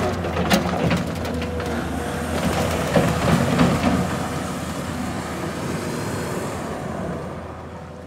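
New Holland L220 skid steer loader's diesel engine running as the machine drives off over dirt and gravel, with clanks and rattles in the first couple of seconds. The sound fades as it moves away near the end.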